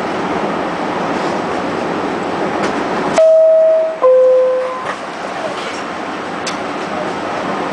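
Door-closing chime of an R68A subway car: two falling tones, each a little under a second, about three seconds in. It is the warning that the doors are about to close. Around it is the steady hum and hiss of the car standing at the platform.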